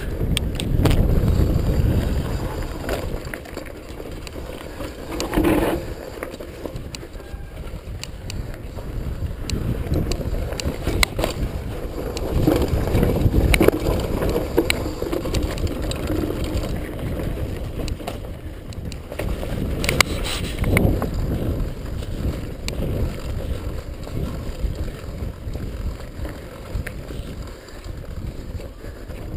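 Mountain bike descending a rough dirt and rock trail: tyres rumbling and crunching over the ground, with the bike rattling and knocking sharply over bumps.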